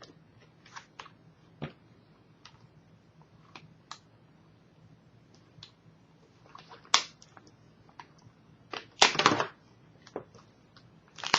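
Hands working at a laptop's display cable and connector on the back of its screen: scattered light clicks and ticks, a sharp scrape about seven seconds in, and a longer, louder rustle around nine seconds.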